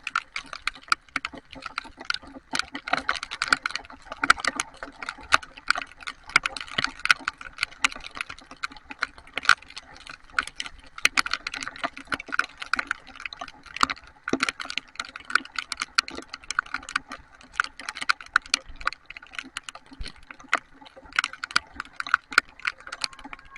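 Heavy rain, its drops striking a hard surface close to the microphone in a dense, irregular stream of sharp clicks.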